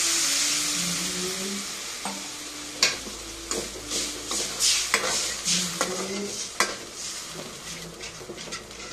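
Water poured into hot oil in a metal kadai sizzles with a loud hiss that dies down over the first couple of seconds. Then a steel spoon stirs the masala, scraping and clinking against the pan.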